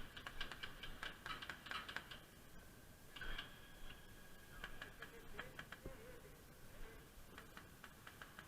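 Airsoft guns firing faintly in several short bursts of rapid clicks.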